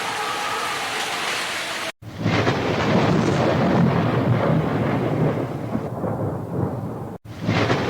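Rain falling steadily, cut off abruptly about two seconds in. It gives way to heavy rain with a deep rolling thunder rumble, which breaks off again briefly near the end.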